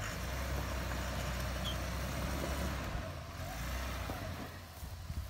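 Toyota Land Cruiser 80-series engine running steadily at low revs as the truck crawls over rocks on a dirt trail.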